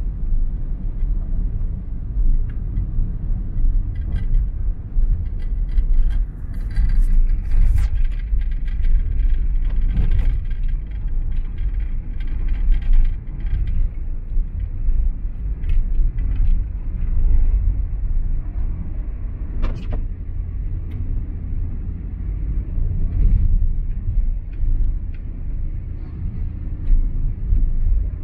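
Low, steady rumble of a car driving on a city road, with a few brief clicks and knocks.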